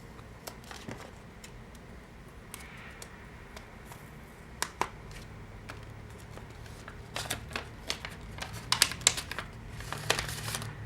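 Gift wrapping being crinkled and torn open by hand, with scattered crackles and clicks that grow busier in the second half as a small wrapped package is unwrapped.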